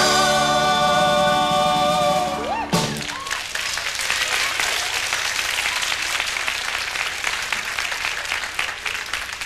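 Singers and a small band hold the final chord of a folk song, cutting off about three seconds in, followed by an audience applauding, gradually dying down.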